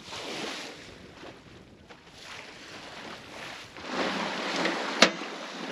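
Wind and sea noise, then a louder hiss of wind on the microphone with a single sharp metallic clank near the end from the lid of a stainless rail-mounted boat grill.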